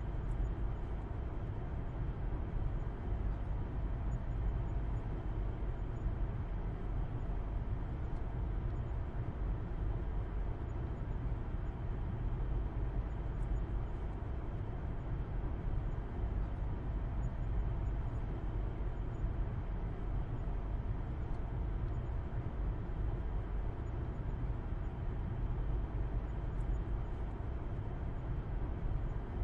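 A car driving at a steady pace: a constant low rumble of engine and road noise with an even hiss on top, without changes.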